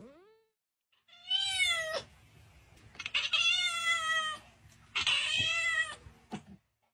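A cat meowing three times, each meow long and drawn out, bending up and then down in pitch, with short pauses between.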